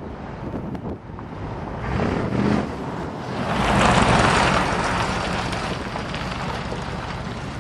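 A Ford 390 FE V8 running through headers and glass-pack mufflers, its pitch and level rising about two seconds in, then a louder rushing swell peaking about four seconds in and slowly dying away. Wind buffets the microphone throughout.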